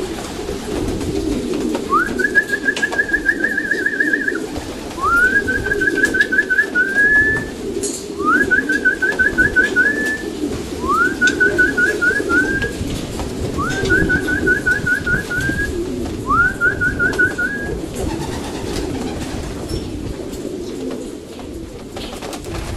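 Racing pigeons in a loft cooing steadily. Over the cooing, a higher trilling call from another bird comes six times, about every three seconds, each one sliding up quickly into a fast trill.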